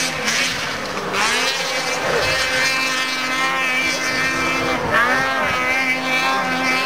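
Snowmobile engines running, with a steady drone throughout and two sharp rising revs, about a second in and again near five seconds.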